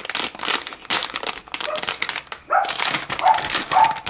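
Crinkling and rustling of a metallic anti-static bag as a circuit board is pulled out of it. From about halfway in, a few short high-pitched whining calls from an animal join the rustling.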